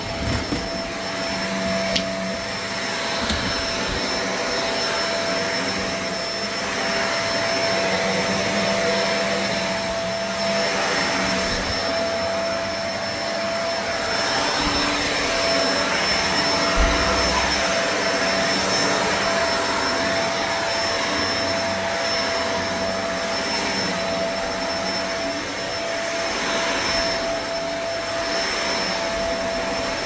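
Corded upright vacuum cleaner running steadily over carpet: a dense rushing noise with a constant motor whine. About halfway through there is one brief low thump.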